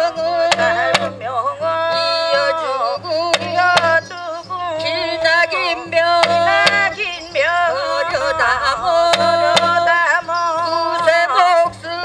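Korean shamanic ritual music: a wavering, sliding sung chant over drum beats at about two a second, with sharp metallic strikes of a gong or cymbals.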